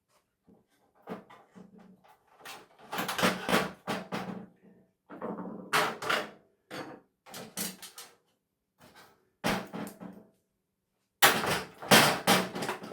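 Irregular bursts of clattering and knocking as loose hard parts from a dismantled television are handled and moved about, with the loudest cluster near the end.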